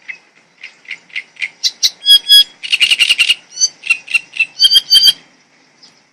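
A songbird singing one loud phrase: a run of short notes that quickens into a fast trill, then a few clear ringing notes, stopping about five seconds in.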